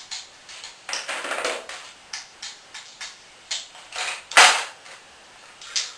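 Irregular metallic clicks and clanks from tools and parts as a small go-kart engine is taken apart, with one louder clatter about four seconds in.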